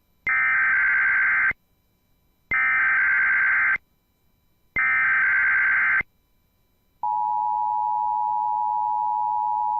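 Emergency Alert System SAME header: three bursts of warbling digital data tones, each about a second and a quarter long with a second of silence between them. About seven seconds in, the steady two-tone EAS attention signal begins. Together they mark the start of an Emergency Alert System test.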